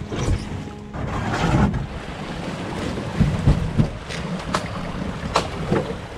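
Canoe being worked through shallow, rocky river water: water rushing, wind buffeting the microphone, and two sharp knocks near the end.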